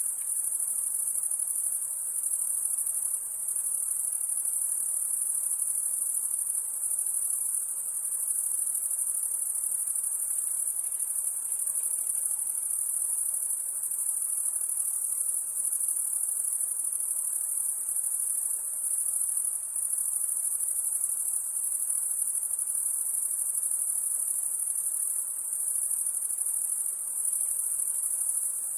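Crickets at night giving a steady, high-pitched trill without pauses, with a faint hiss beneath.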